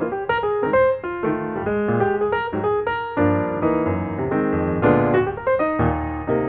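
Background music led by piano, with a quick run of separate notes.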